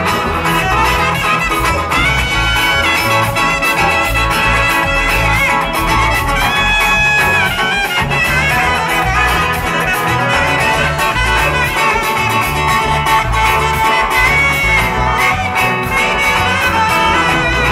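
Live band music with a steady, busy dance beat from drums and congas under acoustic guitar. Held melody notes ring out about two seconds in and again around seven seconds.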